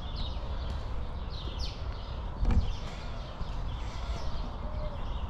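Small birds chirping repeatedly in short, quick falling notes, over a steady low rumble, with a single thump about two and a half seconds in.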